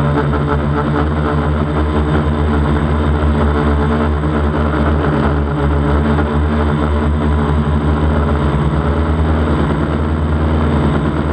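DJI Flamewheel 450 quadcopter's electric motors and propellers droning steadily at hover, heard close up from the camera mounted on the craft.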